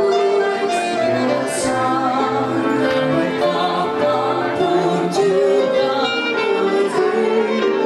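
Small church orchestra of violins, cellos and keyboards playing a hymn, with sustained string melody over held chords.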